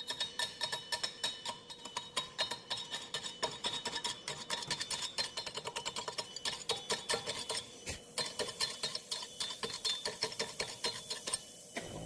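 CO2 gas-shielded automatic welding arc crackling with rapid, irregular spatter pops as a pipe-to-flange joint is welded. The arc cuts off suddenly just before the end, leaving a steady hum.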